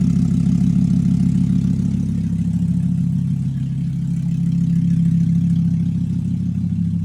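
2013 Volkswagen Jetta SportWagen's replacement engine idling with no exhaust hooked up, the open header giving a loud, raw exhaust note. The idle eases down slightly about two seconds in, then holds steady.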